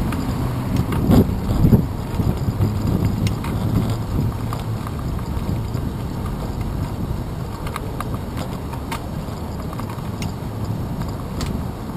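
Wind and road rumble on the microphone of a handlebar-mounted camera on a moving bicycle, with scattered small clicks and rattles from the bike; a few louder knocks come about one to two seconds in.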